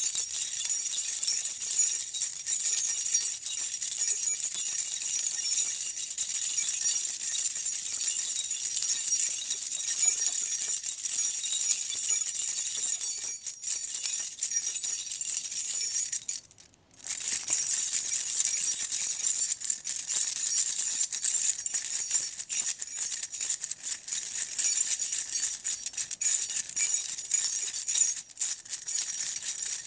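A bunch of metal keys being shaken and jangled continuously in a dense, bright jingling. The jangling stops for a moment a little past halfway, then resumes.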